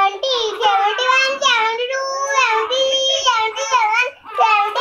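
A young boy's voice chanting in a sing-song tune, holding and sliding between notes, with a short break about four seconds in.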